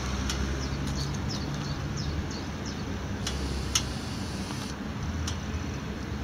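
Moto Guzzi V7 Classic's air-cooled 744 cc transverse V-twin idling steadily, with birds chirping through the first half and a few sharp clicks.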